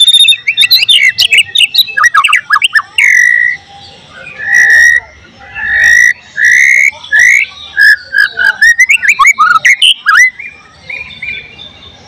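White-rumped shama (murai batu) singing loudly: a fast, varied run of whistled notes, short slides and quick chattering clicks, with several longer held whistles in the middle. Its song mixes in phrases mimicked from other birds.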